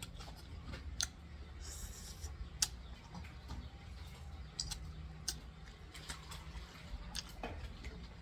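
Someone eating: scattered sharp clicks of utensils and chewing, over a low steady hum.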